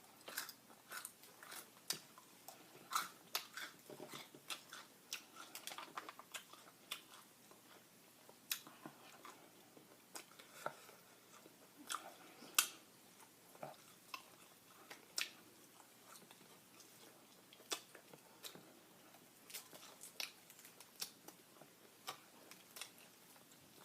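Close-miked chewing of crispy fried chicken: irregular crunches and wet mouth clicks, a few a second, with short pauses between bites.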